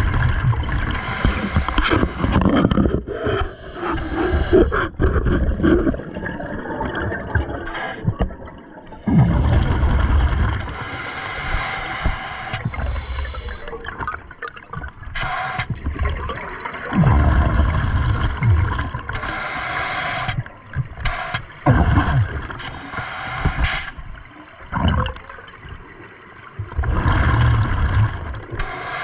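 A scuba diver breathing through a regulator underwater: a hiss on each inhale and a rush of bubbles on each exhale, about four slow breaths.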